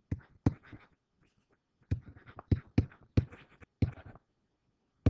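Stylus tapping and scratching on a pen-input writing surface while handwriting in digital ink: a string of short, sharp ticks with brief scratchy strokes between them, then quiet near the end.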